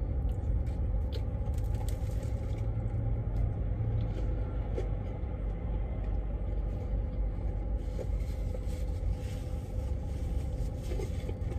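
Steady low rumble of an idling semi-truck diesel engine, heard from inside the cab, with a few faint clicks and rustles.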